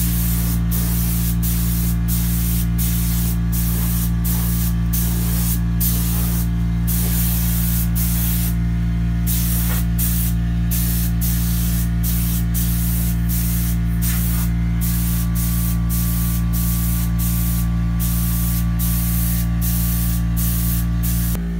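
Paint being sprayed inside a car body in many short hisses that start and stop, over a steady low hum.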